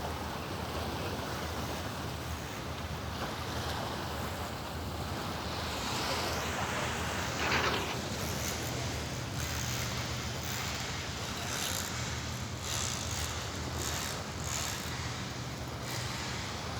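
Sea waves washing on the shore, with wind buffeting the microphone and a steady low hum underneath. A single louder rush of water or wind comes about halfway through, and short gusts follow.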